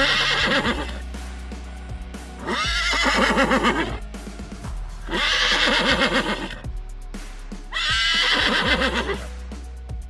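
Horse whinnying four times, each call about a second and a half long and wavering in pitch, roughly every two and a half seconds, over background music.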